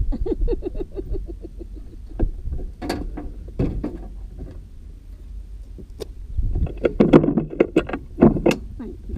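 Clicks, knocks and rattles of a dragster's cockpit safety harness and straps being handled and unbuckled, with a louder cluster of knocks a little past the middle, over a low rumble.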